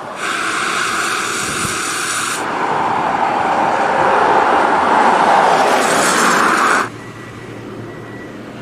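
Traffic on a wet street: vehicles going by close, their tyre and engine noise a steady hiss. The hiss changes abruptly about two seconds in and cuts off suddenly near the end, leaving quieter street background.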